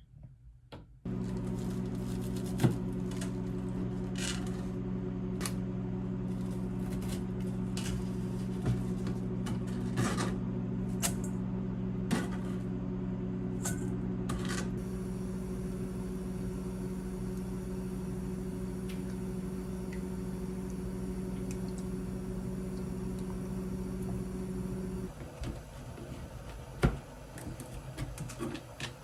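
A kitchen appliance's motor hums steadily, switching on about a second in and cutting off suddenly near the end, with light clicks and knocks of kitchen handling over it.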